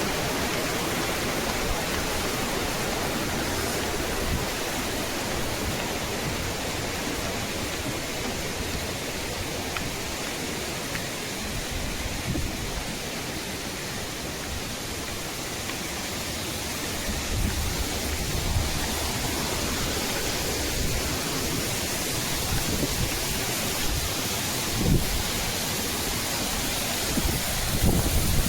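Waterfall rushing steadily, a dense even roar of falling water. A few low bumps come about two-thirds of the way in and near the end.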